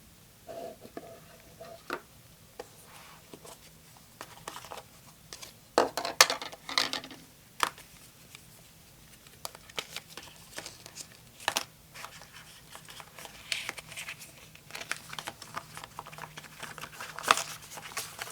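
Hands handling an iPhone 4 box and its packaging: cardboard and paper rustling, sliding and tapping in irregular bursts, loudest about six seconds in and again near the end.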